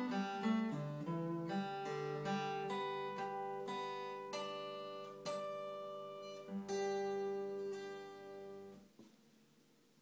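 Solo acoustic guitar playing a folk piece, individual notes picked one after another over held bass notes. A final chord is struck about seven seconds in, rings, and is cut off just before nine seconds.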